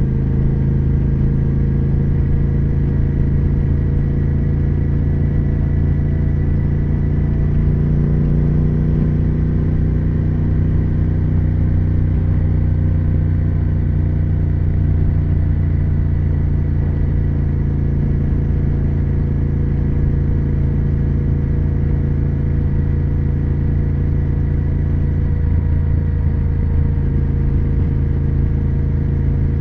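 Triumph Speed Twin 1200's parallel-twin engine and exhaust running under way at a fairly steady engine speed, its pitch drifting only slightly.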